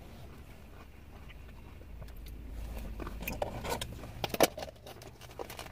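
Eating sounds: a utensil clicking and scraping in a clear plastic cup, with chewing, the clicks coming thickest in the second half and the sharpest about four seconds in. A low rumble swells and fades about two seconds in.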